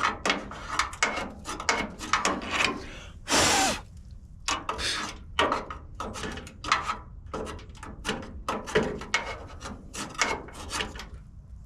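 Quick, irregular scraping strokes, about two or three a second, as nuts and mouse-nest debris are swept across the inside of a pickup's bed side toward a drain hole. One longer, louder scrape comes about three and a half seconds in.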